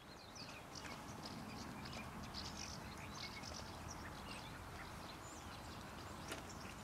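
Faint outdoor ambience: small birds chirping here and there over a low steady hiss, with one short tick about six seconds in.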